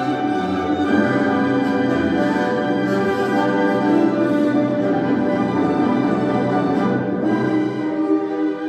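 Orchestral classical music with strings, played through a pair of RAM Bookshelf Monitor MkII speakers driven by a Marantz 1030 amplifier and picked up in the room.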